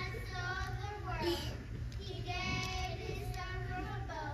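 Children singing, holding drawn-out notes, over a steady low hum.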